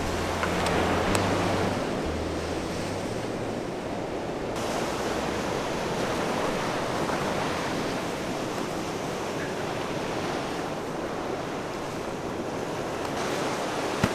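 Sea surf washing in steadily, a continuous rush of breaking waves with wind, swelling slightly now and then.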